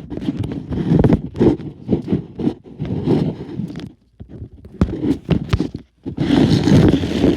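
Irregular knocks and rubbing of things being handled, with a denser, louder stretch of rubbing near the end.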